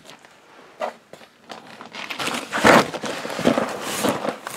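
Plastic and cardboard packaging rustling and crinkling as it is handled, quiet with a few faint clicks at first and then loud and irregular from about two seconds in.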